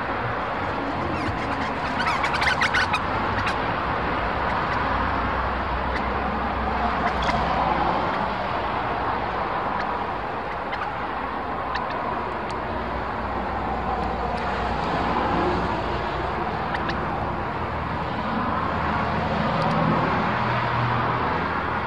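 Steady noise of passing road traffic that swells and fades, with a few brief bird chirps, the clearest about two to three seconds in.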